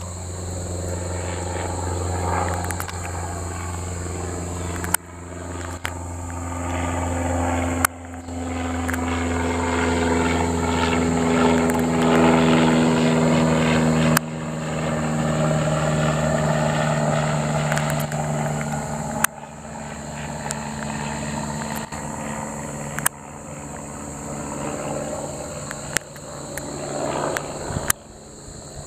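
Piston engine and propeller of a single-engine high-wing light airplane droning overhead. The drone grows louder toward the middle of the pass and then fades, its pitch sliding gently lower as it goes.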